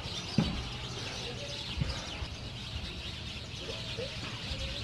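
Birds chirping, with a few short calls, over splashing from fish being handled in a net in shallow water. There is a dull knock about half a second in and a smaller one near two seconds.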